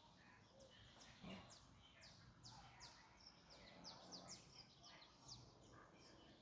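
A flock of black birds calling: many short high notes, each sliding quickly downward, overlapping one after another in a busy chatter, faint over a low background hiss.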